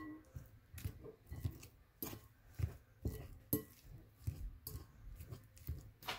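Metal fork clinking and scraping against a glass mixing bowl while mashing cooked potato, in irregular strokes about two a second.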